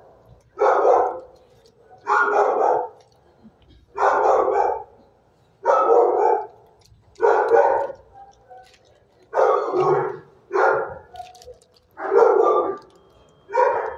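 Dog barking in a shelter kennel block: a steady run of about nine loud barks, one every second and a half or so.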